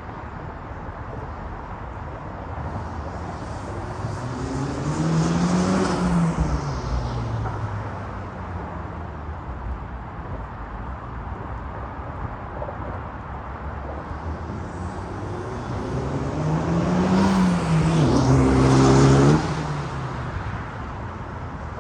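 Honda Civic Type R (FL5) turbocharged 2.0-litre four-cylinder engine, fitted with a K&N drop-in air filter, accelerating hard twice: each time the engine note climbs in pitch, peaks and drops away, and the second run ends abruptly a few seconds before the end.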